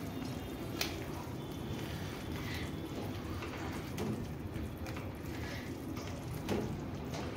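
Silicone spatula stirring thick onion gravy and cream in a steel pan: faint wet squelching with a few light ticks.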